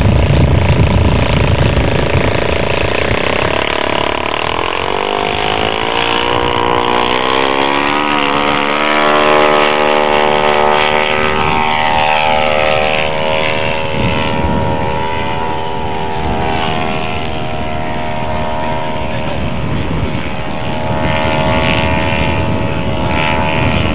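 Radio-controlled model aircraft's engine with propeller, rising steadily in pitch about four seconds in as it is throttled up for the takeoff run, then running at high power in flight, its pitch sliding and wavering as the plane manoeuvres.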